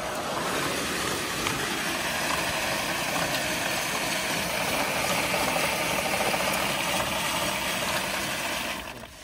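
Barley seed pouring steadily out of a seed drill's metering unit into a calibration bag as the metering roller is turned for a calibration run. It stops abruptly near the end.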